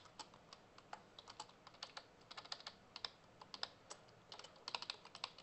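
Typing on a computer keyboard: irregular key clicks, with a quick run of keystrokes near the end.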